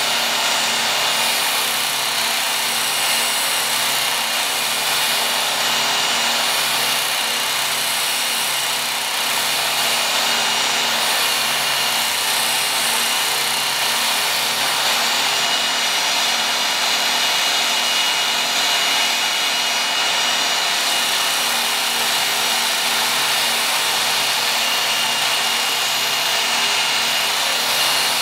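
Work Sharp Ken Onion Edition belt sharpener running, its abrasive belt grinding the steel edge of a Condor Selknam bushcraft knife: a steady grinding hiss with a thin high whine over a motor hum. The belt is removing steel to thin the wide edge bevel until the two sides meet at the apex.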